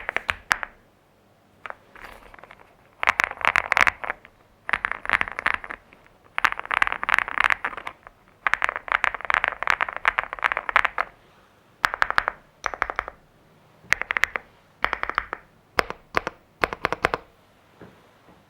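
Stock, unmodded LEOBOG Hi86 mechanical keyboard with linear Active Axis v3 switches on a polycarbonate plate and Cherry PBT doubleshot keycaps, typed on in fast runs of keystrokes with short pauses between them. The runs become shorter and more spaced out in the last third.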